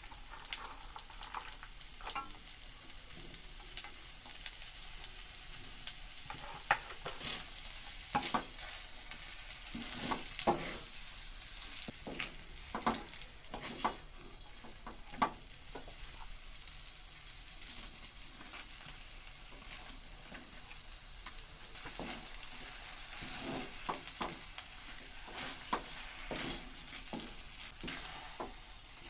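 Stir-fried noodles and vegetables sizzling in a stainless steel wok as a wooden spatula stirs and tosses them, with frequent sharp scrapes and taps of the spatula against the pan over a steady hiss.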